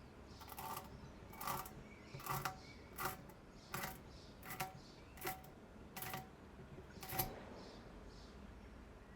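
A series of about nine sharp clicks with a slight metallic ring, evenly spaced about three-quarters of a second apart, stopping about seven seconds in.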